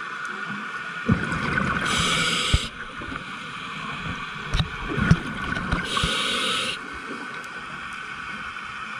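Scuba diver's regulator breathing underwater: two bursts of exhaled bubbles about four seconds apart, each a second or two of low crackling and gurgling that ends in a short hiss.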